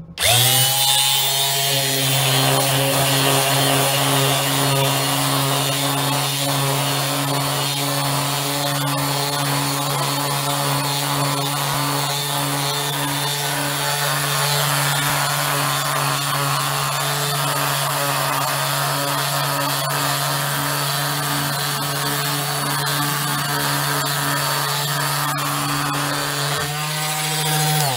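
A 19.2-volt cordless palm sander spins up, then runs steadily at one pitch while it is rubbed over a wooden board, sanding down the frayed edges left by an up-cut router bit. It winds down with a falling pitch near the end. It is kind of noisy.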